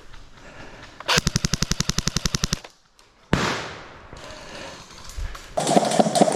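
Airsoft gun firing on full auto: a rapid burst of about fifteen shots a second for a second and a half. Later a sudden rush of noise fades out, and near the end another loud rapid clatter of shots begins.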